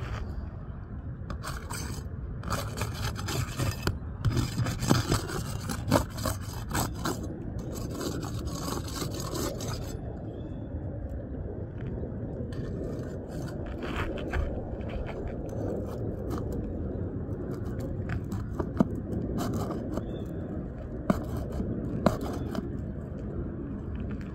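Asphalt roof shingles scraping and crackling as they are worked on during a repair attempt, in irregular spells with sharp clicks over the first ten seconds or so, then steadier and quieter with occasional clicks.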